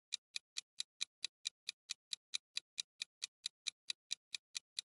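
Ticking sound effect under a quiz countdown timer: a steady, evenly spaced run of short ticks, about four or five a second.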